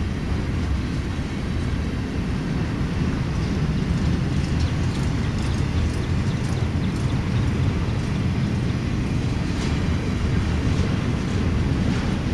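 Intermodal freight train rolling past: a steady low rumble of steel wheels on rail from flatcars carrying highway trailers and from double-stack container cars. Faint short high clicks or squeaks come in from about four seconds in.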